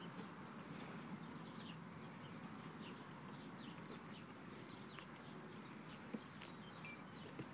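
Faint hoofbeats of a horse moving on soft arena dirt, over steady outdoor background noise with a few short bird chirps.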